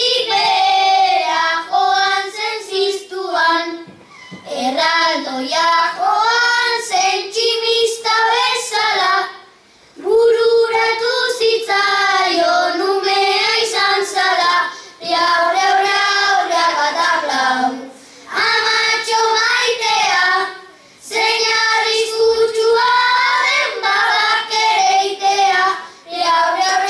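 Children singing Basque bertso verses without accompaniment into a microphone, in sung phrases a few seconds long with short breaths between them.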